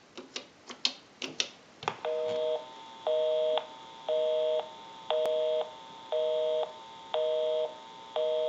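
A quick run of clicks as the payphone's keypad is pressed to dial, then, about two seconds in, a telephone busy signal: a low two-tone beep, half a second on and half a second off, repeating about once a second.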